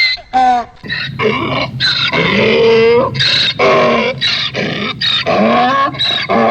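Donkey braying: a loud, sudden-starting run of hee-haw calls, alternating rapidly between high, strained notes and lower honks.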